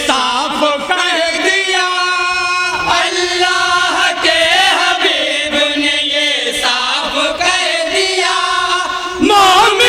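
Chorus of men singing a naat in unison, drawing out long, wavering held notes.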